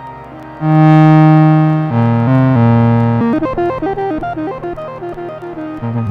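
Eurorack modular synthesizer playing a sequenced pattern: about half a second in, a loud held bass note with a bright, overtone-rich tone, dropping to a lower held note near two seconds. From about three seconds, a quick run of short notes jumping up and down in pitch, with the bass coming back in near the end.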